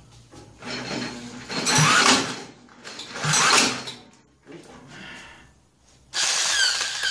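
Electric drill run in three bursts, its motor whining up and down in pitch as it spins over the 125cc four-stroke engine of a 1959 Mitsubishi Silver Pigeon scooter through a socket. The engine is cranked this way but does not fire.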